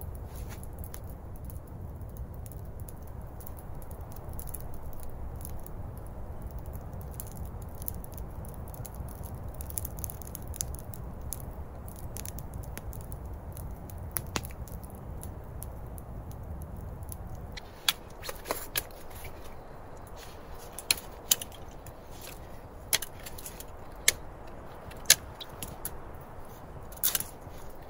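A campfire of sticks and twigs burning, a steady low rush of flame with constant light crackling and popping. About two-thirds through it gives way to a knife whittling a thin stick, a string of sharp, irregular cutting clicks.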